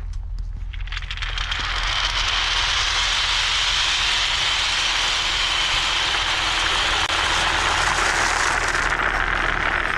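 Many marbles rolling together along a marble-run track, a dense steady rolling rush that builds up about a second in and then holds.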